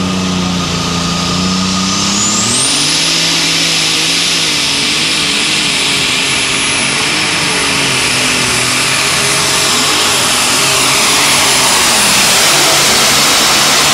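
Light super stock pulling tractor's engine at full throttle pulling the sled: about two seconds in it revs up, a high whistle rising with it, then it runs hard and steady, a little louder near the end.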